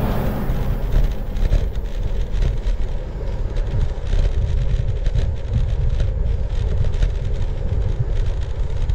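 Wind and road noise from a bicycle ride on an action camera's microphone: a heavy, gusting low rumble with scattered small clicks and rattles.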